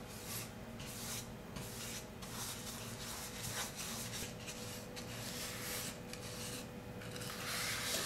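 Bristle paintbrush spreading varnish over bare wood: a soft brushing rub that comes in repeated back-and-forth strokes.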